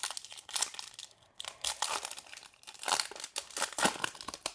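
Wrapper of a Panini Prizm trading card pack being torn open and crinkled by hand, in a string of irregular crackling bursts.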